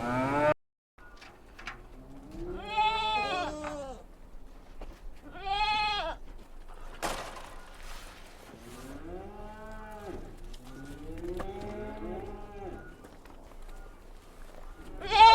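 A cow's moo cuts off in the first half second. Then several sheep bleat in a string of overlapping calls at different pitches, with a sharp click about seven seconds in.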